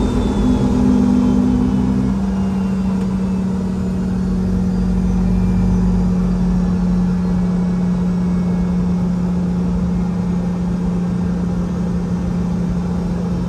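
Rolls-Royce BR715 turbofan of a Boeing 717 idling during taxi, heard from inside the cabin: a steady low hum with fainter higher tones over it. A second, slightly higher tone stops about two seconds in.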